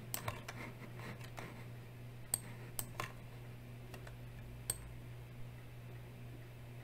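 A computer mouse clicking a handful of times as a web page is scrolled, sharp separate clicks with the loudest about two and a half seconds in, three seconds in and near five seconds, over a faint steady low hum.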